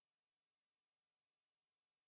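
Near silence: only a faint, even hiss with no distinct sound.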